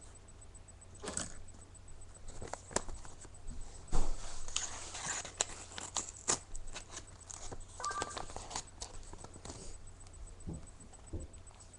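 Packaging being handled and opened: irregular rustling and crinkling with scattered clicks and taps, and a sharp knock about four seconds in.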